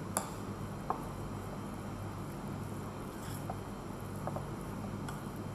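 A spoon stirring a cabbage, tuna and flour mixture in a glass mixing bowl, with a couple of sharp clicks against the glass in the first second and a few fainter taps later, over a steady low hum.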